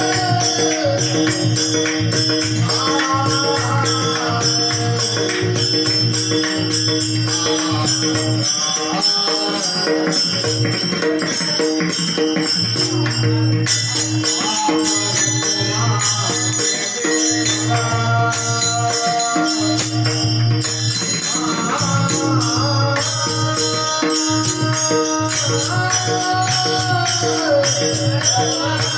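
Marathi devotional bhajan music in an instrumental stretch: a melody moving in steps over a held drone note, jingling hand cymbals keeping a fast steady beat, and a low drum pulsing underneath.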